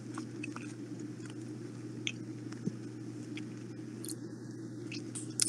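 Faint, scattered crunches and mouth clicks of someone chewing crunchy snacks, jalapeno chips and raw vegetables, close to the microphone, over a steady low hum.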